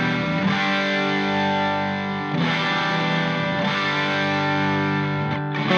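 Background music: distorted electric guitar playing held chords that change every second or two.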